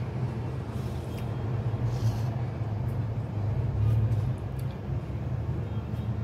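A steady low mechanical hum runs throughout, with a few faint light clicks from handling on the counter.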